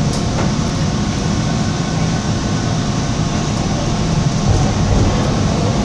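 Toronto subway train running through a tunnel, heard from inside the car: a steady low rumble of the train in motion.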